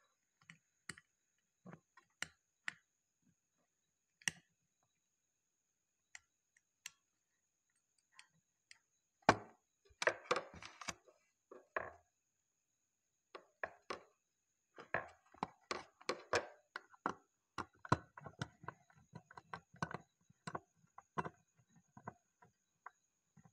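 Handling noise from wiring work on a plastic switch board: irregular small clicks, taps and rustles as wires are twisted and fitted, sparse at first and coming thick and fast in the second half. A faint steady high whine runs underneath.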